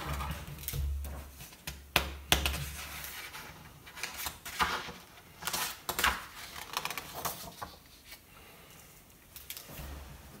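Sheets of paper being moved and laid out on a desk: irregular rustling and sliding, with sharp taps and clicks scattered through.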